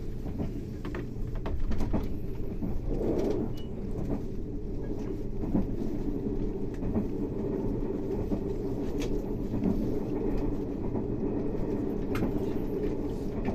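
JR 381 series electric train under way, heard from on board: a steady low running rumble with scattered short sharp clicks.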